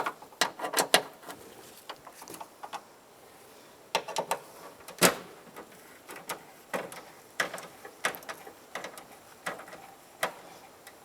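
Irregular clicks and light knocks of hand tools at work inside a car door, as the door handle's mounting bolts are snugged down. One louder knock comes about halfway through.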